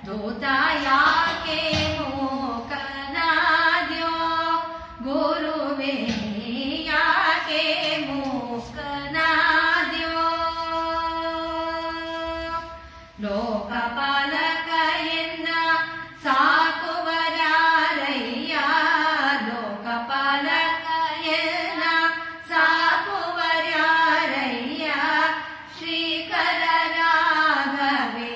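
A woman singing a Kannada devotional song solo in Carnatic style, in ornamented melodic phrases with one long held note about ten seconds in.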